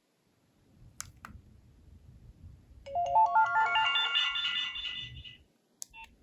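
Nokia 3300b mobile phone playing a ringtone through its loudspeaker: a quick run of stepped notes climbing in pitch for about two and a half seconds, then cut off. Two clicks come before it, and a click and a short beep come near the end.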